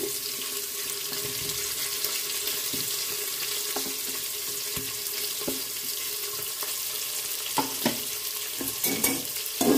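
Sliced onions sizzling in hot oil in an aluminium pressure cooker as they are tipped in: a steady hiss, with a few light clicks near the end.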